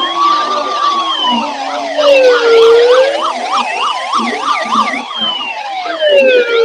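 Several sirens sounding at once. A slow wail rises and falls over a few seconds, and a faster yelp sweeps up and down several times a second through the middle.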